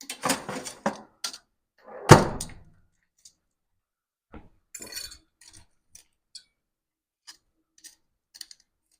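Kitchenware being handled: short clattering and knocks of dishes and utensils, with one heavy thunk about two seconds in and a few lighter clicks later on.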